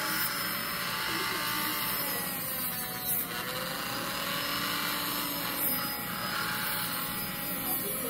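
Dremel MultiPro rotary tool running steadily with a small grinding stone, grinding down a macaw's toenails. Its motor whine wavers slightly in pitch as the stone is worked against the nail.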